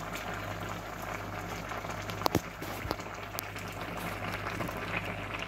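Thin, watery bitter gourd curry boiling in a metal pot, a steady bubbling, with a couple of sharp clicks near the middle.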